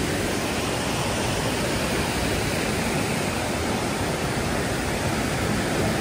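Waterfall rushing: a steady, even roar of falling water with no break.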